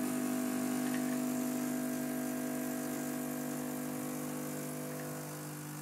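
Bezzera Magica espresso machine's pump humming steadily while a double shot is extracted. The hum eases off a little near the end.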